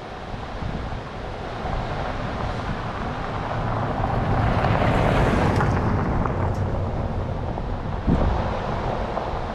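A pickup truck drives past on a gravel road, its tyres and engine growing louder to a peak about five seconds in and then fading, with wind buffeting the microphone throughout. A short knock comes near the end.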